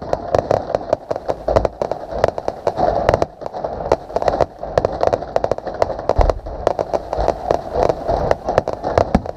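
Fireworks going off: dense, rapid crackling with a few deeper booms, one about a second and a half in and more around six seconds in.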